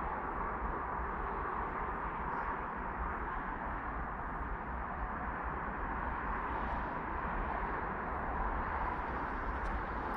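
Steady outdoor ambient noise, even throughout, with no distinct events.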